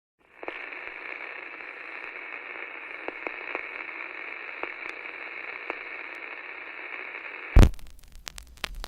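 Steady, thin radio-style static hiss with scattered crackles, cut off about seven and a half seconds in by a loud thump, followed by a few clicks.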